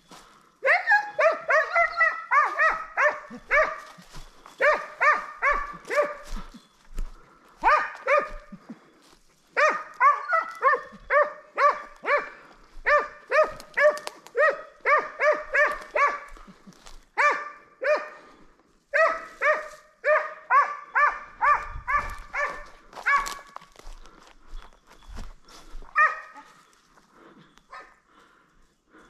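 Kopay scent hound barking in long runs of rapid barks, about four a second, with short breaks between runs: the hound giving voice on the trail of a hare.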